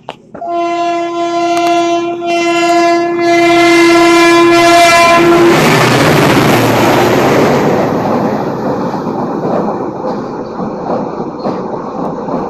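Renfe train sounding one long steady horn blast for about five seconds, then rushing past with a loud rumble and wheel clatter on the rails that eases off slightly near the end.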